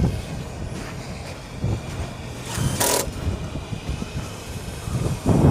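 Low, steady mechanical hum and rumble typical of a commercial rooftop HVAC unit running, with a brief hissing rush about three seconds in.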